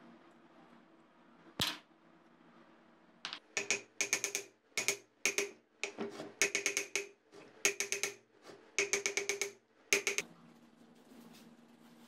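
A hammer tapping on the metal rim of an old ceiling fan's motor casing in quick runs of ringing metallic knocks, after a single sharp click about a second and a half in.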